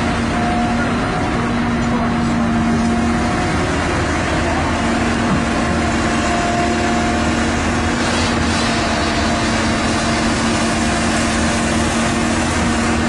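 Cat 319D LN tracked excavator's diesel engine running steadily, with a steady whine held over the engine noise.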